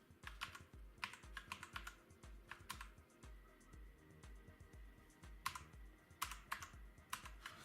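Keys on a Red Square mechanical keyboard being pressed one after another, clicking in short scattered groups of two or three strokes as the function keys are tried out.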